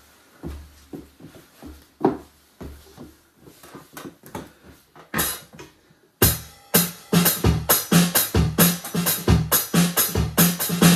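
Electronic drum kit being played: a few scattered, lighter hits and bass-drum thuds, then about six seconds in a loud, fast beat of kick and snare strikes starts.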